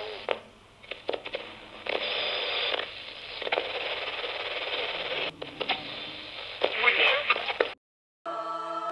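Portable radio playing through its small speaker: a hiss of static broken by brief snatches of broadcast voices and crackles. It cuts off suddenly near the end, and after a short silence music with long held notes begins.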